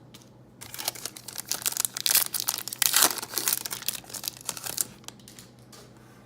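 A trading card pack's wrapper being torn open and crinkled by hand, a dense crackle for about four seconds, loudest in the middle and dying away near the end.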